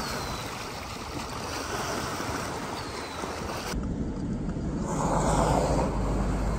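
Wind and lake waves: a steady wash of outdoor noise. About halfway through it changes abruptly to another stretch with a heavy low rumble of wind on the microphone.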